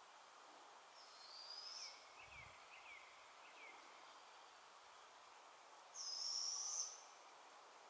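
Barred owl giving two high, drawn-out screeching calls, each about a second long and rising slightly, about a second in and again near the end, the second louder. A few short falling chirps sound between them.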